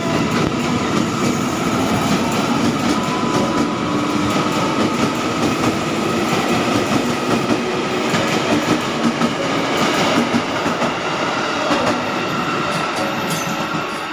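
Train running on rails: a loud, steady rumble and rail noise with frequent wheel clicks and a faint steady whine.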